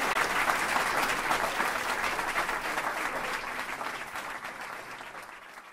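Audience applauding, a dense patter of claps that fades out steadily.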